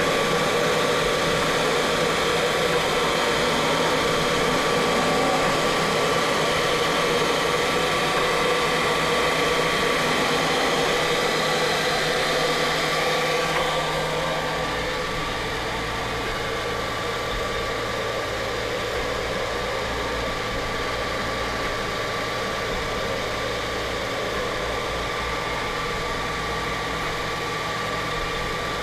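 CNC machine running a laser-diode engraving pass on wood: a steady mechanical hum with a steady high tone running through it. About halfway through it becomes a little quieter and some of the higher tones drop away.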